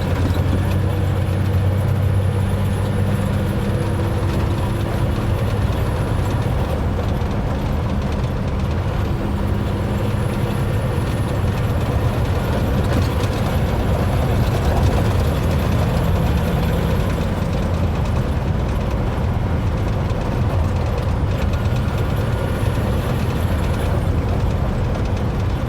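Heavy truck's engine and drivetrain running steadily under load at highway speed, with a noise from the 2002 Eaton Fuller transmission in gear while accelerating, which the owner takes for a transmission fault. Fainter higher tones come and go over the steady low drone.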